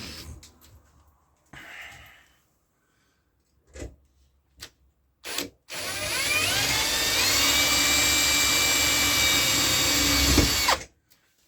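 Power drill starting with a few clicks, then spinning up with a rising whine and running steadily for about five seconds before stopping abruptly.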